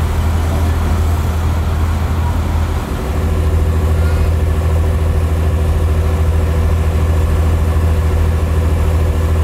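Engine of a railway maintenance vehicle idling steadily with a deep hum, dipping briefly about three seconds in.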